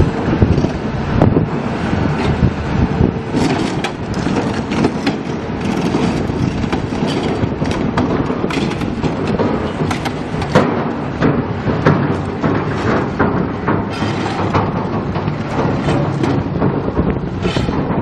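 Heavy construction machine running steadily, with many sharp metallic clanks and crunches over it.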